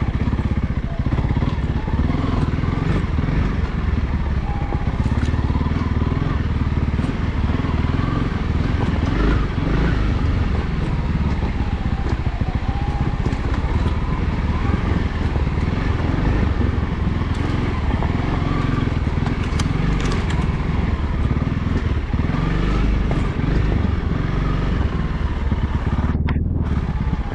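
Honda CRF300L's single-cylinder engine running while riding, its note rising and falling with the throttle.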